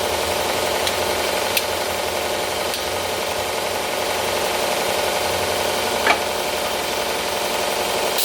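Wen belt sander running steadily while a steel knife blade, held at a set angle in a magnetic bevel jig, is ground against the belt to form its bevel. A couple of short ticks are heard, about a second and a half in and again about six seconds in.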